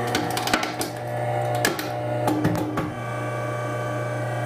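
SEM 0101 Sledgehammer hard drive crusher running: a steady low motor hum, with a series of sharp cracks and snaps over the first three seconds as the conical punch crushes the hard drive's chassis and platter, then only the hum.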